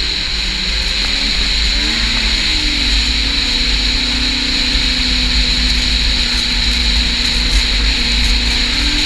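Snowmobile engine running at trail speed, heard from on board the moving sled; its pitch rises about two seconds in, then holds steady over a constant high whine and a low rumble.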